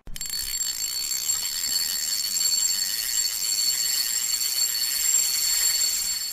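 A continuous high-pitched ringing, bell- or alarm-like, with two held shrill tones over a shimmering hiss. It starts suddenly at full level.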